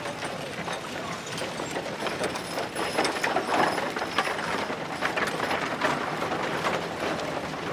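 A horse-drawn wagon rattling and clattering along, its wooden parts knocking and clicking, with hooves clopping. A dense run of clicks and knocks that is a little louder around the middle.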